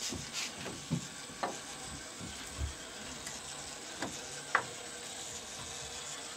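Traxxas TRX-4 RC crawler's electric motor and geared drivetrain running with a steady whir while it crawls over wooden planks and blocks, on a 3S battery. Its tyres and chassis knock on the wood several times, loudest about four and a half seconds in.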